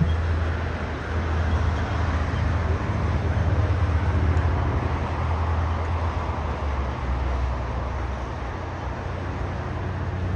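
Jet engines of a twin-engine airliner rolling on the runway: a steady, loud rumbling roar with a deep low drone underneath, swelling slightly about four seconds in and easing a little toward the end.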